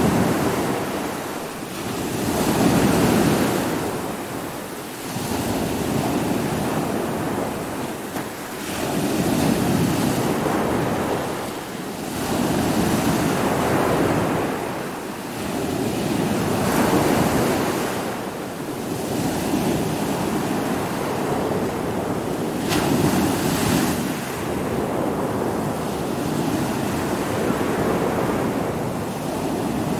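Stormy sea: heavy waves surging and breaking in a steady rush of water and wind, swelling and falling back every few seconds, with one sharper crash about three-quarters of the way through.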